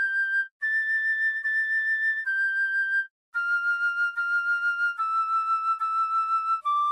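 Music: a slow flute melody, one held note at a time with short breaks. The notes step downward through the second half.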